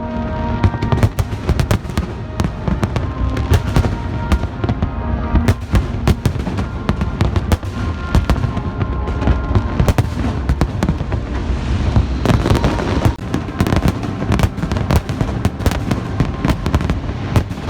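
Fireworks display going off in rapid, dense bangs and crackles, over music with held notes playing along with the show.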